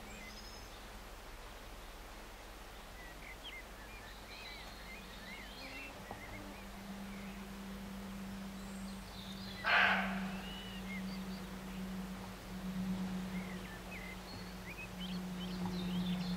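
A roe deer gives one short, harsh bark about ten seconds in, over small birds chirping and a steady low hum.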